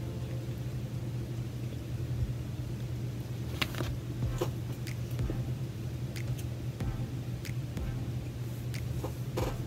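Chewing a bite of chicken sandwich with the mouth closed: scattered small wet mouth clicks, a few louder around four seconds in and near the end, over a steady low background hum.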